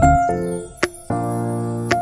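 Background music: keyboard-style notes and chords over a bass line, with bell-like struck notes.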